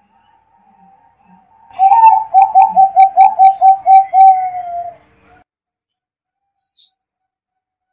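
Zebra dove (perkutut) singing: a fast run of about ten short coos, each a few tenths of a second apart, starting about two seconds in and lasting about three seconds.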